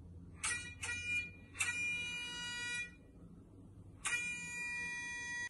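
Vehicle horn sound effect honking: two short beeps, a longer honk, then a long honk starting about four seconds in, as for a school bus.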